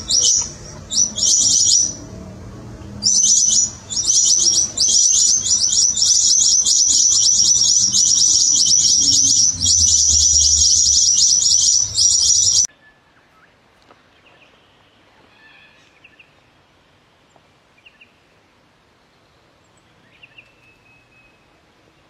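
New Holland honeyeaters calling: a loud, dense run of rapid high chirps with a few short breaks, which stops abruptly about twelve and a half seconds in. After that only a few faint, scattered bird calls remain.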